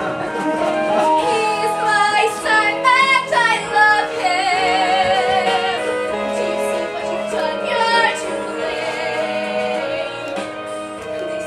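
Young voices singing a number from a stage musical, holding notes with vibrato over instrumental accompaniment.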